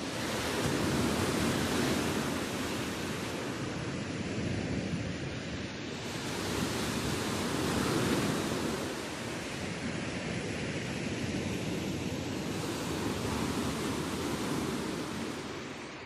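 Black Sea surf breaking and washing up a pebble beach: a steady hiss of surf that swells with each of three waves, roughly every six seconds.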